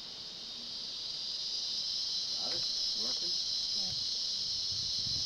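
Insect chorus, crickets, making a steady high-pitched drone that grows louder over the first two seconds, with faint voices near the middle.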